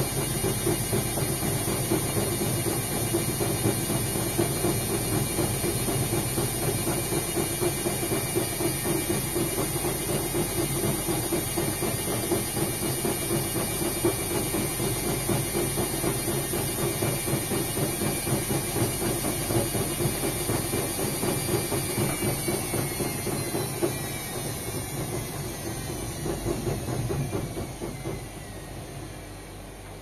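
Indesit front-loading washing machine spinning at high speed, a steady motor whine over the rumble of the drum. About three-quarters of the way through the whine falls in pitch and the noise fades as the drum slows at the end of the spin.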